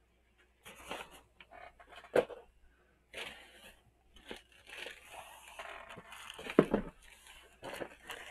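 Mail packages and a plastic poly mailer being picked up and moved on a desk: crinkling and rustling, with two knocks as packages are set down, about two seconds in and, louder, near the end.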